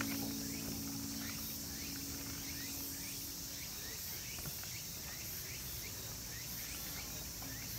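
Evening insect chorus of crickets and cicadas: a steady high shrill with short rising chirps repeating about twice a second. A low steady hum stops about three and a half seconds in.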